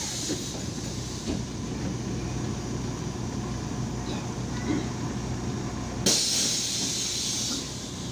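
Inside a MAZ 103 city bus in slow traffic: the diesel engine running with a steady low drone. About six seconds in, a sharp hiss of compressed air from the bus's pneumatic system lasts over a second.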